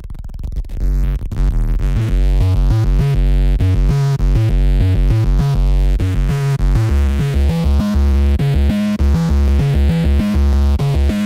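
Electronic background music with a synthesizer and a steady drum-machine beat, fading in over the first second or two.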